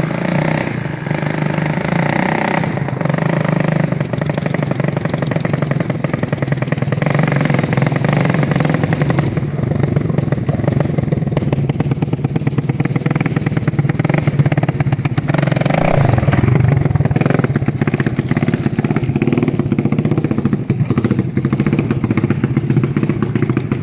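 1986 Honda ATC350X's single-cylinder four-stroke engine running with no muffler fitted, just after a top-end rebuild. It idles a little fast and its speed shifts now and then.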